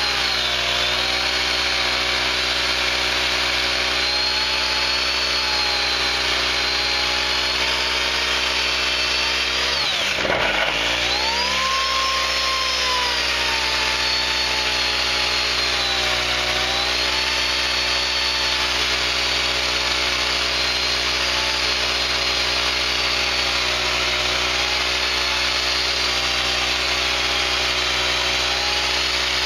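Remington Limb N Trim 8-amp, 14-inch electric chainsaw cutting a birch log, its motor whine rising and falling as the chain loads in the wood. The small portable generator powering it runs underneath. About ten seconds in, the pitch drops sharply and then recovers as the cut bogs the saw down.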